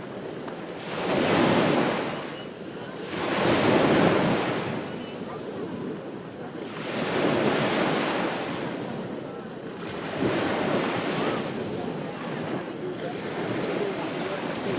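Ocean surf on a beach: waves breaking and washing in, swelling and ebbing about every three seconds, four times over.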